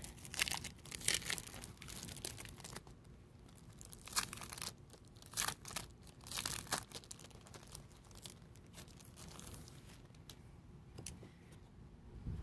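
Thin, glossy clear plastic of the L-holder folders crinkling and crackling as it is handled and flexed, in a run of short bursts that grow sparser in the second half.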